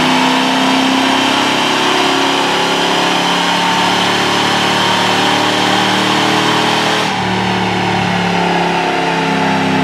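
Cammed 5.3 L V8 of a 2003 Chevrolet Silverado running under throttle on a chassis dyno, through stock manifolds and a Flowmaster 40 series muffler. The note holds fairly steady, then changes abruptly about seven seconds in, losing its sharper upper edge and settling to a lower, softer running sound.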